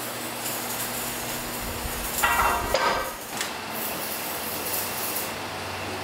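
Metal clanking as a steel propeller shaft and its fittings are handled, a short run of loud knocks between about two and three seconds in, over a steady workshop machine hum.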